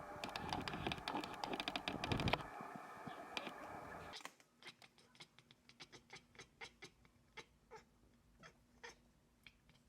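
Bengal cat chattering at prey: a dense, fast run of clicking chirps for the first couple of seconds. After a cut about four seconds in come fainter, scattered short chirps, two or three a second.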